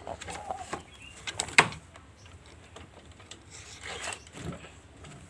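Scattered handling and scuffling noises, a few short chicken sounds and one sharp knock about one and a half seconds in, as a chicken with a snoring respiratory illness is held and a feather soaked in eucalyptus oil is worked into its throat.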